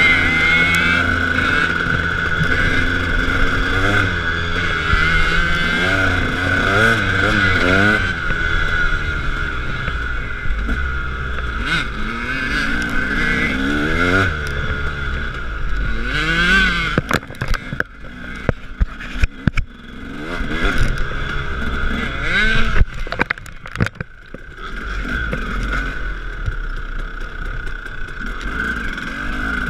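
KTM 300 two-stroke dirt bike engine heard from on the bike, revving up and down over and over as it rides. About halfway through the engine drops back, and a run of sharp knocks and clatter follows for several seconds.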